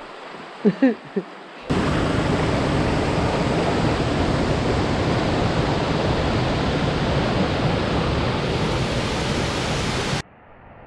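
Loud, steady rushing of water, like surf or a waterfall, that starts suddenly a couple of seconds in and cuts off just before the end.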